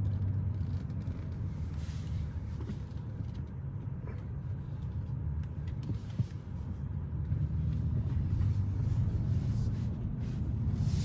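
A BMW X6 M50i's twin-turbo V8 running as the SUV drives along, heard from inside the cabin: a steady low rumble.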